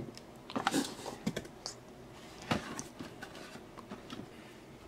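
Cardboard Funko Pop window boxes being handled and set down on a stack: a scatter of light taps, scuffs and cardboard rustles at irregular moments.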